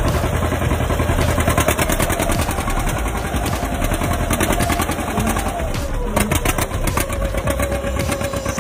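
Two-cylinder John Deere tractor engine running hard under load, with a fast, even popping exhaust beat. Its pitch sags slightly about six seconds in.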